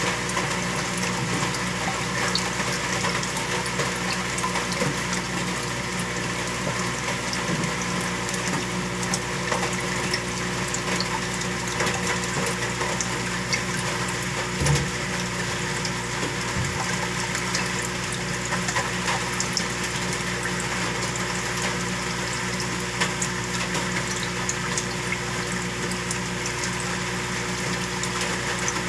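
Saltwater aquarium's water pump running with a steady hum under a constant wash of circulating, bubbling water.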